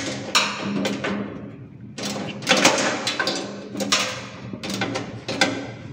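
Socket ratchet wrench clicking in short runs, with sharp metal knocks of hand tools against a fan coil unit's sheet-metal housing, as the fan motor's mounting bolts are undone.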